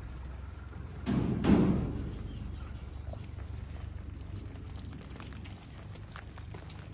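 A goat bleats once, briefly, about a second in.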